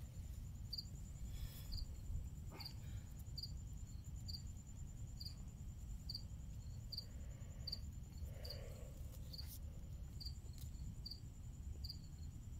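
Crickets chirping evenly, about one and a half short chirps a second, with a continuous high insect trill behind them over a low steady rumble.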